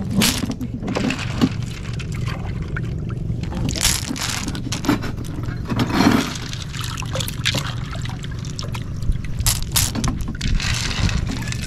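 Wet bitanga snail shells clicking and rustling against each other as hands sift through a pile of them, then dripping and splashing as snails are dropped into a pot of water near the end. A steady low rumble runs underneath.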